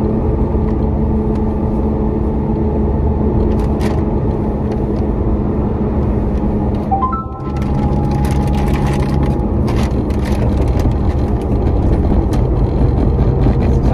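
Car engine and road noise heard inside the cabin while driving, steady throughout. About seven seconds in the sound briefly dips, and the engine note then settles at a different pitch.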